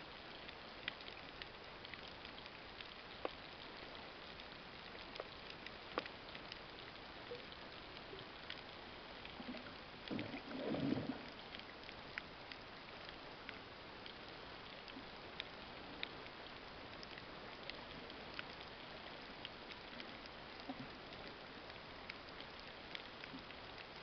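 Underwater reef ambience: a steady hiss full of irregular sharp clicks and crackles, the typical crackle of snapping shrimp on a coral reef. About ten seconds in a brief, louder, lower burst of sound stands out.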